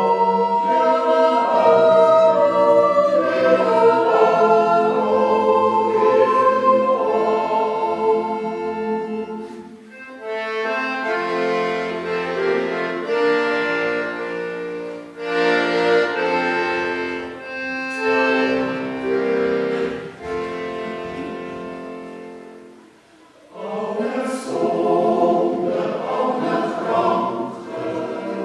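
Swiss yodel choir of men's and women's voices singing in parts, in long sustained phrases, with a short breath pause about 23 seconds in before the singing resumes.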